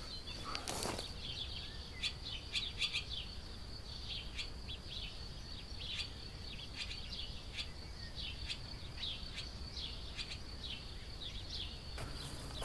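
Barn swallow twittering: a run of short, quick chirps through the whole stretch, over a steady high-pitched whine.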